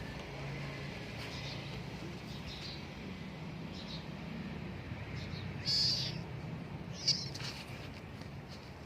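Outdoor ambience with birds giving short high chirps now and then, two louder ones late on, over a low steady hum.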